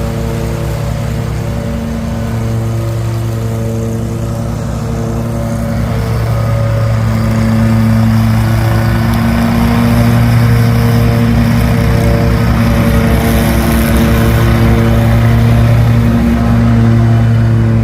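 An engine running steadily with a rapid even firing pulse, getting louder about six seconds in.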